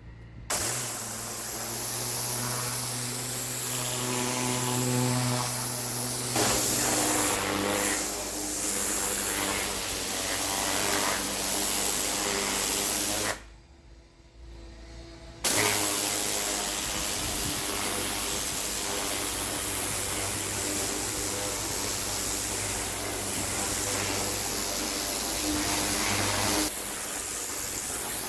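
Pressure washer running, its motor humming steadily under the hiss of the high-pressure water jet blasting imprinted concrete. The sound breaks off for about two seconds near the middle, then resumes.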